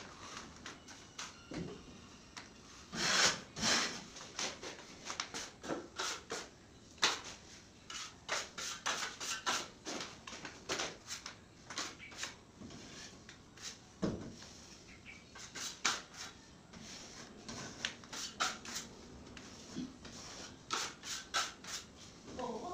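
Putty knife scraping and spreading joint compound over the seams of fiber-cement ceiling boards: irregular short rasping strokes, with a single knock about fourteen seconds in.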